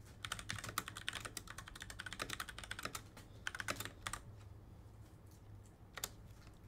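Typing on a computer keyboard: a quick, dense run of key clicks for about four seconds, then a pause and one or two more clicks near the end.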